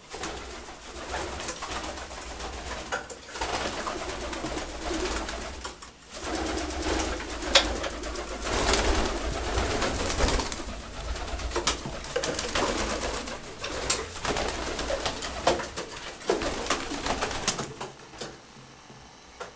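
Saxon fancy pigeons cooing in their loft, the low coos coming in short spells, over a constant rustling noise with scattered clicks.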